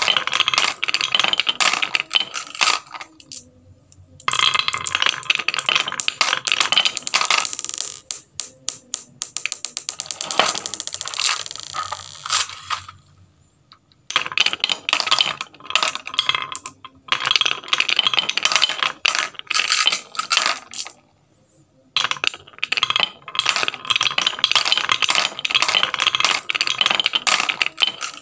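Marbles rolling down a wooden chute and clattering into a plastic toy dump truck bed, clicking against each other in dense rattling runs, with three short pauses.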